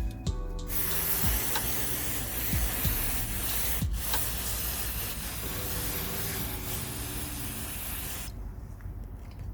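WD-40 aerosol can spraying in one long hiss, used in place of brake cleaner to clean the pulley parts. The hiss cuts out for a moment about four seconds in and stops about a second before the end.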